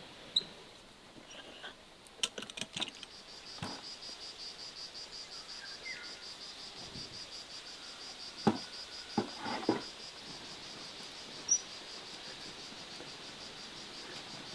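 A high, fast-pulsing insect trill that sets in about two seconds in and carries on steadily, with scattered knocks and clinks from glass canning jars and a hand lid-seaming tool as compote jars are sealed and turned over.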